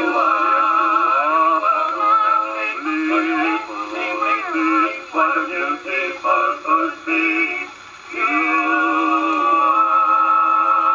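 A 1914 Victrola V-IV acoustic phonograph playing a 1908 Victor 78 rpm record of a male vocal quartet singing, thin and with no low bass. There is a short break about eight seconds in, then a long held chord.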